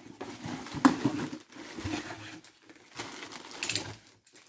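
Clear plastic wrapping crinkling and rustling in uneven bursts as a dry bag is pulled out of a cardboard box, with a sharp crackle about a second in.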